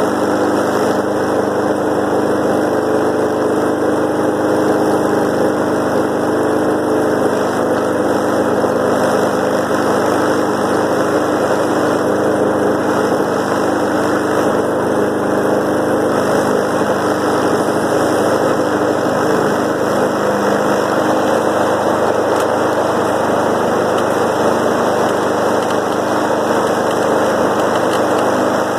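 2007 Snapper self-propelled lawn mower's small engine running steadily at an even speed, warming up after a frozen cold start at 19°F.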